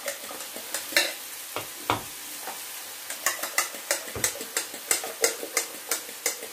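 Diced zucchini and cod sizzling in a frying pan as beaten egg is poured in from a glass bowl. Sharp clicks of a utensil against the bowl or pan sound over the sizzle, a few at first, then a regular run of about three a second from about three seconds in.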